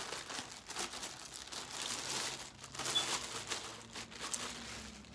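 Clear plastic bag crinkling in irregular crackles as it is handled and pulled off a new shoe.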